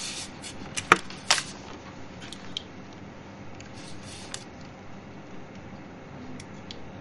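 Sheets of paper being handled and leafed through: a couple of sharp crackles about a second in, then scattered faint rustles over a steady low room hum.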